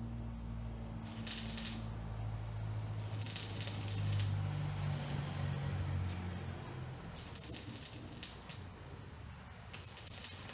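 Stick (electrode) arc welding on a steel tube: the arc crackles and sizzles in four short bursts of about a second each, over a steady low hum.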